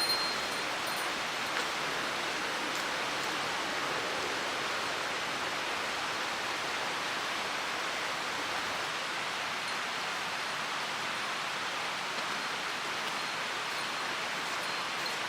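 Mountain stream water rushing: a steady, even hiss of flowing water with no breaks.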